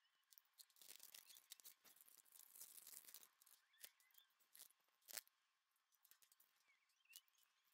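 Faint crinkling of small plastic zip bags of diamond-painting drills being handled, then a few sharp plastic clicks as they are set into clear storage containers, the loudest a little past halfway.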